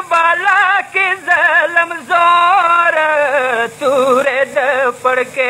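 A man singing a Pashto noha, a mourning lament, in long melismatic phrases with heavy vibrato, pausing briefly for breath between phrases.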